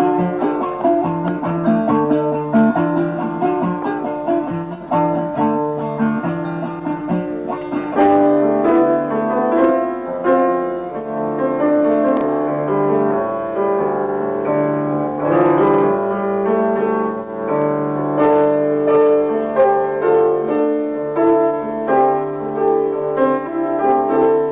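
Instrumental music without singing, with plucked strings and a piano-like keyboard playing pitched notes. The playing grows fuller about eight seconds in.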